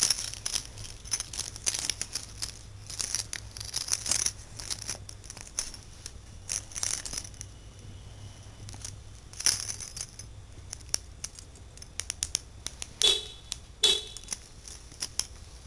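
Car keys and fob jangling and clicking in a toddler's hands, then two short car horn beeps about 13 and 14 seconds in, set off by pressing the key fob.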